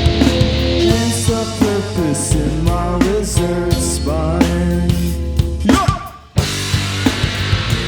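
A rock band playing live on drum kit, bass and guitar. About six seconds in the band cuts out for a split second, then crashes back in together.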